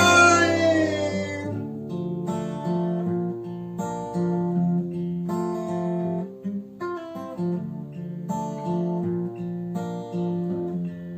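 Acoustic guitar playing a rhythmic strummed chord pattern as an instrumental interlude between verses. A held sung note with vibrato slides down and fades out in the first second and a half.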